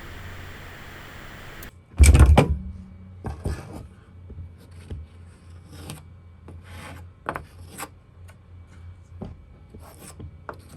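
Cedar planks being handled and worked: a steady faint hiss that cuts off abruptly, then one loud knock of wood, followed by scattered scrapes and light knocks at irregular intervals.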